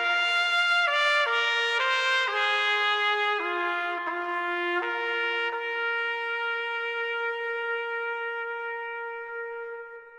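Background music: a slow solo brass melody played one note at a time, ending on a long held note that fades out near the end.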